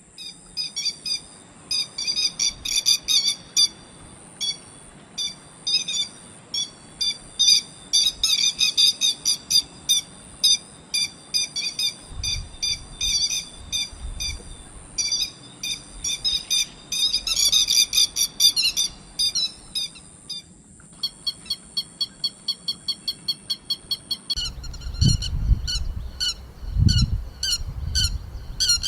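Grey-headed lapwing (yellow-billed lapwing) calling: short, sharp, high calls repeated over and over, in fast clusters and then in an even series of about three a second. A steady high hiss underlies the calls until about three-quarters of the way through, and low rumbling thumps come in near the end.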